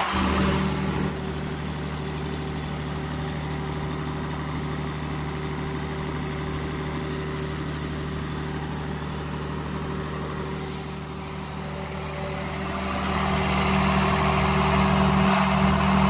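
Cummins diesel generator engine running at a steady speed. It grows louder again about three-quarters of the way through.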